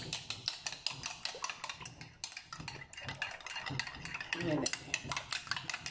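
Spoon beating raw eggs in a glass bowl, clicking rapidly against the glass at about five strokes a second.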